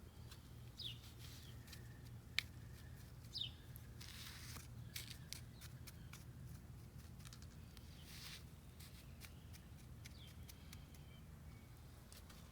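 Faint outdoor ambience: a bird gives two short, falling chirps in the first few seconds, among scattered light clicks and brief rustles, over a low steady hum.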